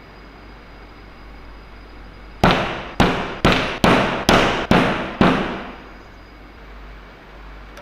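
Seven sharp strikes in quick succession, about two a second, each dying away briefly, over a low steady hum.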